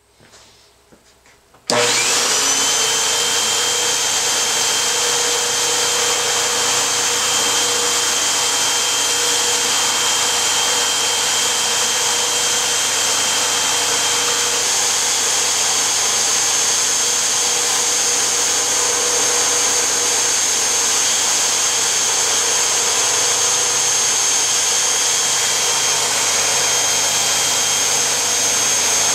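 Household vacuum cleaner switched on about two seconds in, then running steadily with a loud rush of air and a steady high whine, its airflow driving a small model Tesla disk turbine.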